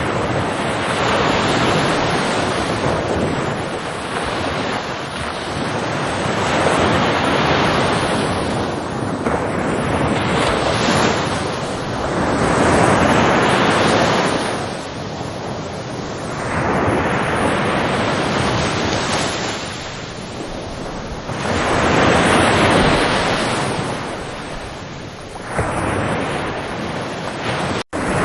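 Ocean waves breaking and washing in. The surf swells and ebbs in repeated surges every three to five seconds. The sound drops out for an instant near the end.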